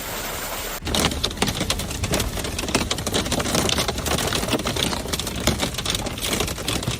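Hailstones pelting a hard surface in a dense, rapid, irregular clatter of sharp hits, coming in abruptly about a second in after a steady hiss of heavy falling rain or hail.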